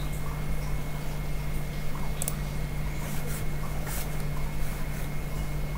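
Steady electrical hum and hiss with a thin, constant high tone, the background noise of the recording setup. A few faint clicks come about two, three and four seconds in.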